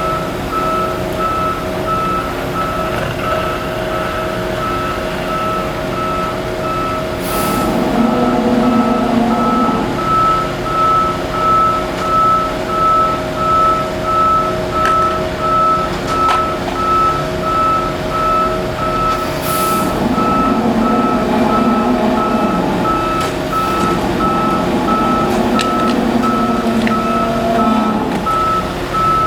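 Concrete truck's reversing alarm beeping steadily over its running engine, with the engine picking up twice and two short hisses of air.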